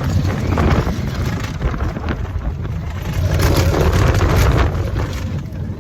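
Wind buffeting the microphone over a steady low motor rumble, as when riding in a moving boat or vehicle, with the gusts swelling about halfway through.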